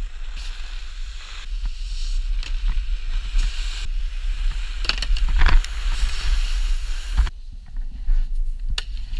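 Wind buffeting an action camera's microphone, mixed with the scrape of snowboard edges over snow and a few short knocks; the sound changes abruptly about seven seconds in.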